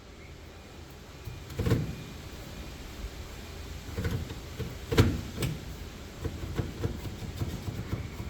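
Clunks and knocks of parts being handled inside a vehicle cab, the sharpest about five seconds in, followed by a run of light clicks and taps.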